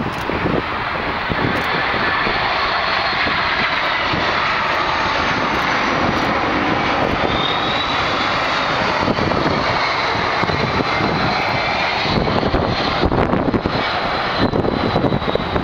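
A McDonnell Douglas MD-10-10 freighter's three General Electric CF6 turbofans on final approach, passing low overhead: a steady jet roar with a high fan whine that bends in pitch as the aircraft goes by.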